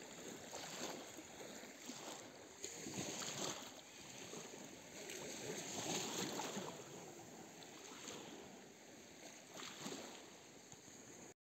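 Small waves lapping on a pebbly lake shore, swelling and falling every second or two; the sound cuts off suddenly near the end.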